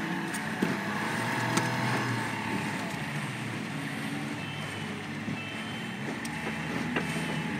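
Outboard motor running steadily under way, with water rushing along the boat's hull. A few short sharp knocks cut through, the clearest about half a second in and near the end.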